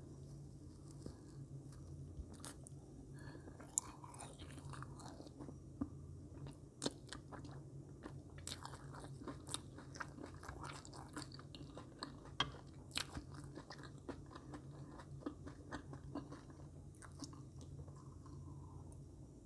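Close-up chewing of marshmallows: soft, sticky mouth sounds with many sharp, irregular wet clicks, busiest in the middle, over a steady low hum.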